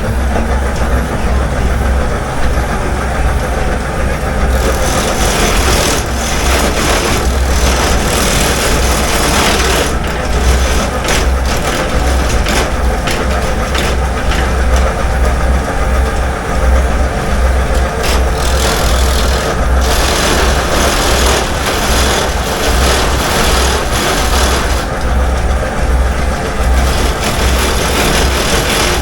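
Clog-hollowing machine running with a steady low motor hum while its fast-spinning knives cut out the inside of a wooden clog. The higher cutting noise sets in a few seconds in and drops away briefly a couple of times as the blank is worked.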